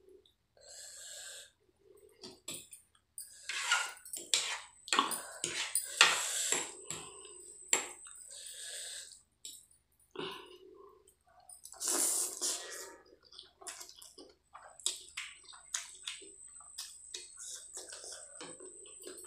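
Wet squishing and clicking of spicy Maggi instant noodles being mixed and picked up by hand and with a fork on a plate, along with chewing and lip-smacking mouth sounds. The sounds come in irregular bursts, busiest through the first half and again around the middle.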